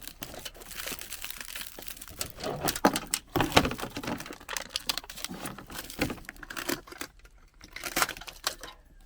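Aluminium foil tape crinkling and rustling as it is pulled off and wrapped around the edge of a vent fitting, with irregular crackles and handling clicks.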